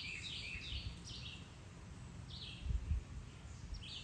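A songbird chirping: a quick run of short, falling notes at the start, then a few more later, over a low outdoor rumble. A couple of low thumps come about two and three-quarter seconds in.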